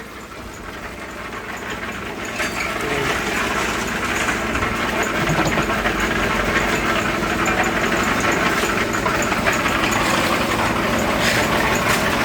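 Backhoe's diesel engine running under load, getting louder over the first few seconds and then holding steady.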